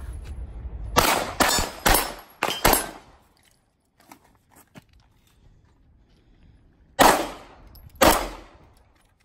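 Pistol gunshots in strings of rapid fire: five shots in under two seconds, then, after a pause of about four seconds, two more shots about a second apart.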